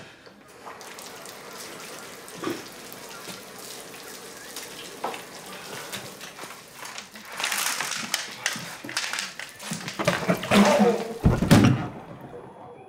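Water running from a bathtub faucet into the tub. The rush grows louder for a while, and heavy thumps come about ten to eleven seconds in.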